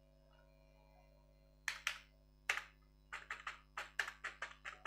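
Typing on a computer keyboard. After a quiet start there are a few separate keystrokes about two seconds in, then a quicker run of keystrokes near the end.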